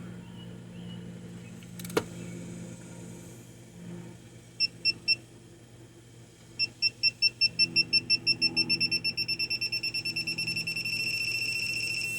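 Digital torque wrench beeping as a bolt is pulled up to its 30 lb-ft setting: three short beeps, then beeps that come faster and faster and run together into one steady tone, signalling that the set torque has been reached. A sharp click about two seconds in.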